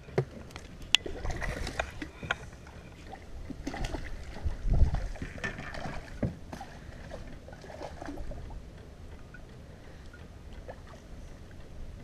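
Scattered knocks and clicks of fishing gear and movement in a small fishing boat, sounding through the hull; the loudest is a dull thump about five seconds in.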